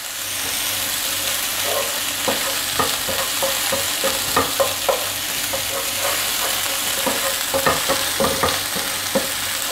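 Cumin seeds and ginger-garlic paste sizzling in hot oil in a non-stick frying pan: a steady hiss. Through it, a wooden spatula stirs and scrapes, knocking against the pan at irregular moments.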